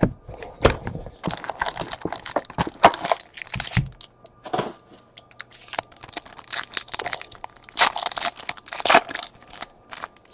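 Trading card packs being torn open by hand, the wrappers crackling and crinkling in irregular tears, with a sharp knock at the start as the card box is handled.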